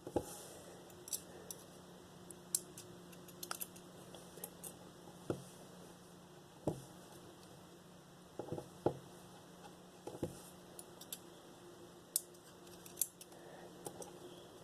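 Small sharp clicks and taps at irregular intervals, about one a second, from tools and tiny metal parts as a Master 410 padlock is gutted, its pins and springs picked out of the cylinder.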